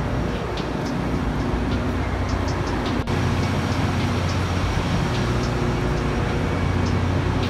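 Outdoor street ambience: a steady low hum of vehicle engines and traffic. It breaks off abruptly about three seconds in and carries on with a stronger low drone.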